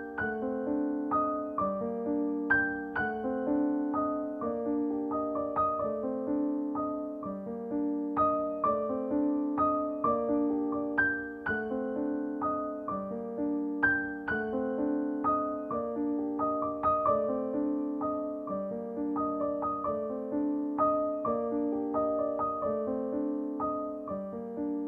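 Background music: a gentle piano piece, notes struck in a steady repeating pattern.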